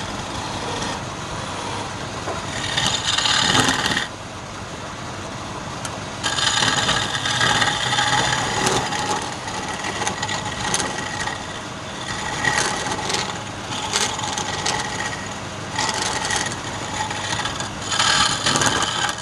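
Wood lathe running with a turning tool cutting into the spinning wood in stretches of rough scraping, the lathe's steady hum beneath.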